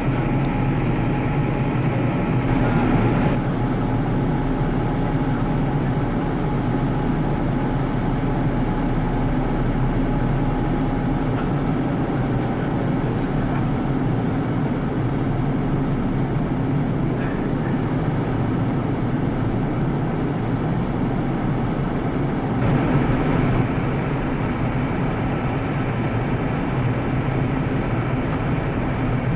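Lufthansa Airbus A340-600 with its four Rolls-Royce Trent 500 jet engines, running as a steady drone with several steady tones, during the landing. It swells slightly for a moment about three seconds in and again near twenty-three seconds.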